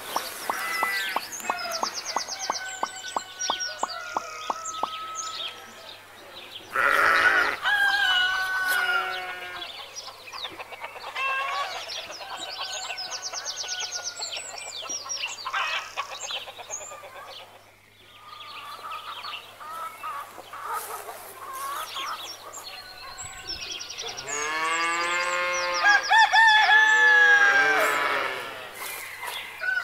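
Farmyard animal calls, chiefly chickens clucking and roosters crowing, repeating one after another. The loudest, longest calls come near the end.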